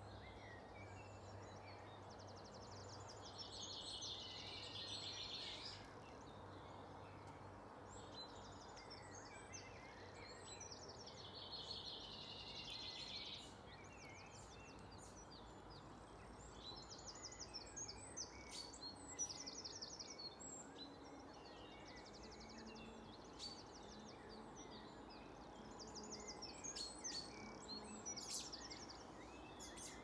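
Songbirds singing in the dawn chorus: a trilling song phrase a few seconds long comes back every several seconds, with other short chirps between, over a faint low hum.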